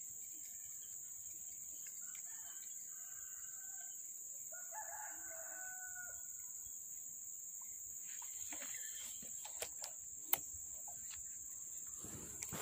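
A faint rooster crow about five seconds in, with a shorter, fainter call a few seconds before it. A steady high hiss runs underneath, and a few sharp clicks come near the end.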